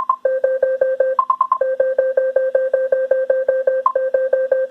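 iRobot Roomba's speaker beeping rapidly as it runs its diagnostic software tests: a fast, even string of low beeps, about seven a second, broken now and then by short runs of higher beeps.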